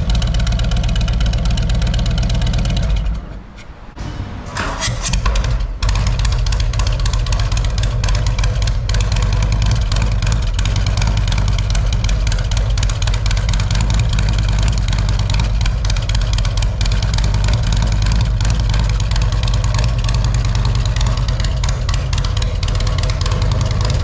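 Harley-Davidson Milwaukee-Eight 114 V-twin idling on its stock cam. The sound breaks off about three seconds in. Then a 114 fitted with a 468 Zippers cam and SVT Jackhammer mufflers cranks and fires instantly at about five seconds, settling into a steady idle.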